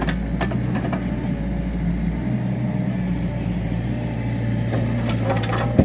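Mini excavator engine running steadily, with a few sharp clanks near the start and again in the last second.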